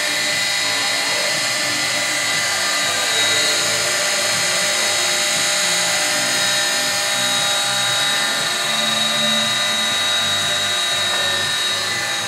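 Lobo dual 45-degree cut-off saw with its motors running, a steady whine with a few fixed high tones.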